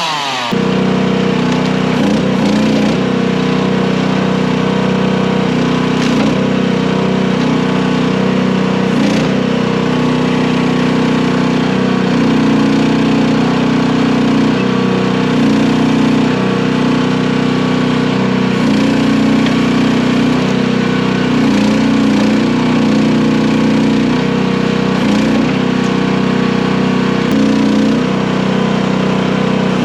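Mini skid steer's small engine running steadily at working speed, its pitch dipping briefly every few seconds as the loader's hydraulics take load.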